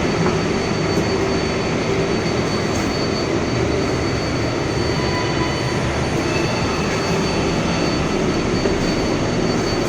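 Interior noise of a moving New York City 7 train subway car: a steady, loud running rumble of wheels on rails, with a thin high steady whine over it.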